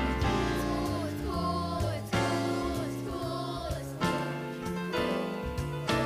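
A song from a children's church musical: accompaniment with a changing bass line and voices singing over it. It starts suddenly right at the beginning.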